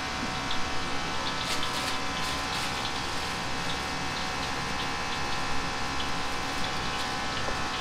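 Steady hum and hiss of restaurant kitchen equipment, with light crinkling of a plastic bag as raw hearts are handled, most of it a second or two in.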